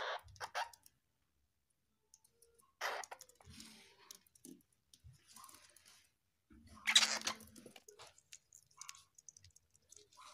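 Flying squirrel gnawing food: scattered small clicks and crunches, with a few louder short bursts of noise at the very start, about three seconds in and, loudest, about seven seconds in.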